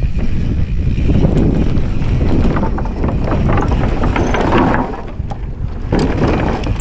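2020 Specialized Enduro S-Works mountain bike descending fast, its tyres rolling over rocky dirt and then across a wooden plank wallride, with many small knocks and rattles from the bike over the rough surface. Wind buffets the camera microphone throughout.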